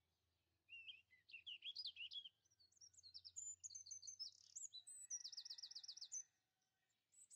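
A songbird singing one long, fast, varied song of high chirps and twitters, ending in a rapid trill of repeated notes; it starts about a second in and stops about a second before the end.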